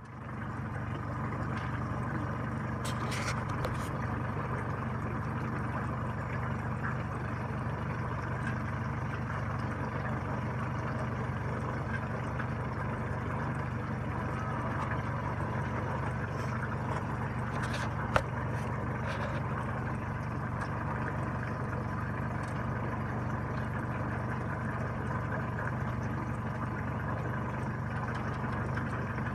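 Small boat's engine idling steadily, with one sharp knock about eighteen seconds in.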